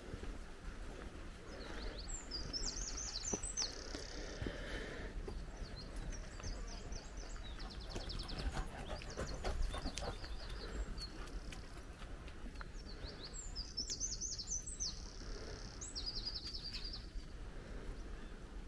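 A small songbird singing three bouts of quick, high trilling phrases a few seconds apart, over a steady low rumble and a few light clicks.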